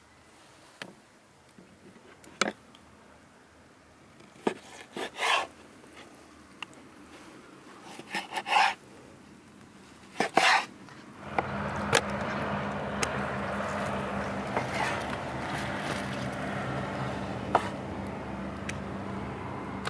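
Kitchen knife cutting eels on a wooden cutting board: sharp knocks of the blade on the board and a few longer scraping slicing strokes. About halfway through, a steady rushing noise with a low hum comes up and carries on under further knife knocks.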